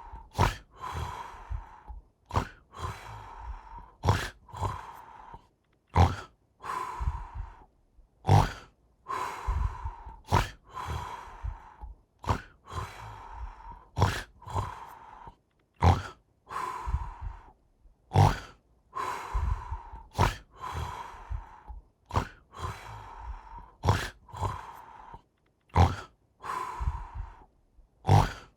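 Snoring: a sharp snort on each breath in, followed by a long hissing breath out, repeating steadily about every two seconds.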